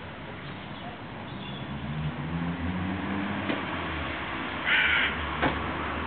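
A hooded crow gives one short, harsh caw a little before five seconds in.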